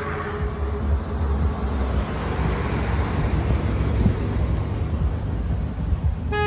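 Steady outdoor rumble like road traffic. A car horn begins to toot right at the very end.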